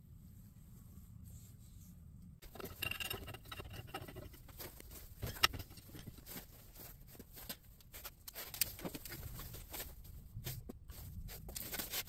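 A pipe wrench being fitted and levered on a truck door hinge clamped in a bench vise, to bend the hinge: irregular metal clicks and scrapes mixed with glove and jacket rustling, starting about two and a half seconds in, with one sharper click about five seconds in.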